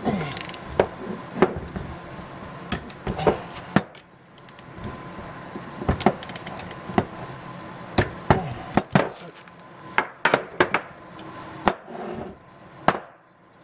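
Torque wrench tightening the connecting-rod caps on a Subaru 2.5L SOHC crankshaft: irregular sharp metal clicks and clacks from the ratchet and the socket on the rod-cap fasteners, a dozen or so scattered through.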